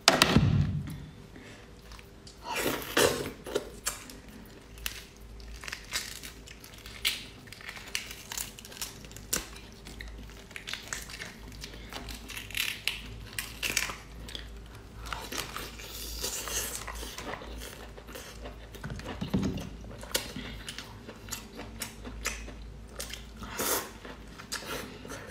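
Close-up eating sounds: a large cooked prawn's shell crackling and tearing as it is peeled by hand, then biting and chewing, with irregular clicks, crackles and wet mouth sounds.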